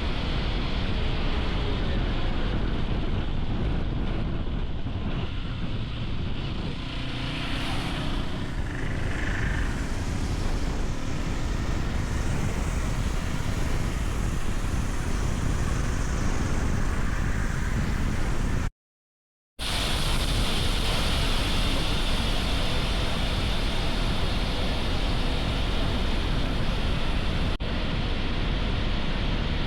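Riding a Hero XPulse 210 motorcycle: steady wind rush on the microphone over road and engine noise. The sound cuts out to silence for under a second about two-thirds of the way through.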